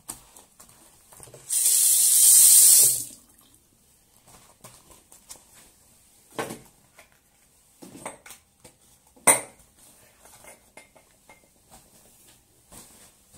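Bathroom cleaning: water hissing loudly for about a second and a half, then several separate knocks and clatters, the sharpest about nine seconds in.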